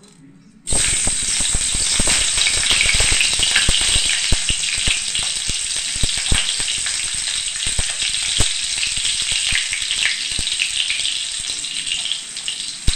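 Chopped green chillies frying in hot oil: a loud, steady sizzle full of sharp crackles and pops. It starts abruptly about a second in.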